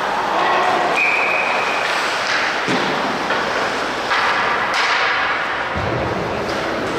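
Ice hockey game sounds in a rink: a steady din of skates on the ice and the arena, broken by a few sharp thuds of puck, sticks or players against the boards.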